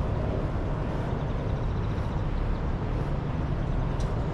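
Steady low rumble of city background noise, with traffic-like hum, and one faint click near the end.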